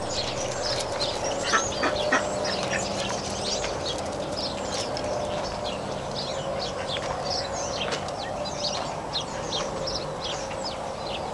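Many small birds chirping without a break: a dense stream of short, high chirps that sweep downward in pitch, over a faint steady hum.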